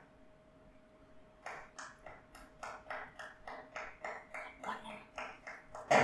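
Handclaps run through a virtual-acoustics model of a sea cave: a quick even run of about four claps a second, starting about a second and a half in. Each clap is shaped by the simulated cave response at one listening point.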